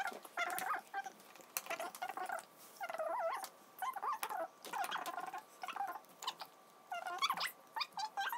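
A small animal whining in repeated high, wavering runs of about a second each, with short pauses between.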